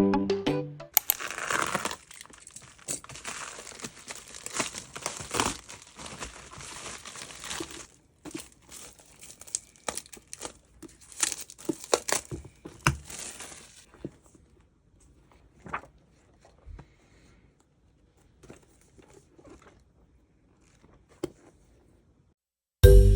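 Plastic or paper packaging being crinkled and torn open: a dense rustling with sharp crackles that lasts about half the stretch, then scattered light clicks and handling noises. Background music cuts off near the start and comes back at the very end.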